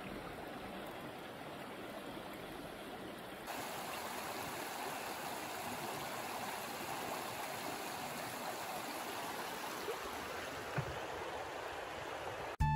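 A shallow river running over stones: a steady rush of water. It steps up a little louder about three and a half seconds in.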